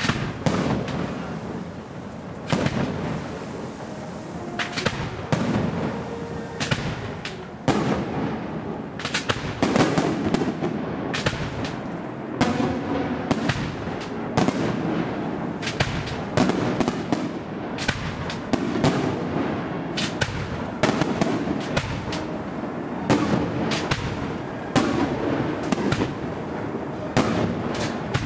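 Aerial fireworks shells bursting in a dense, irregular barrage, several bangs a second with hardly a pause, some sharper and louder than others.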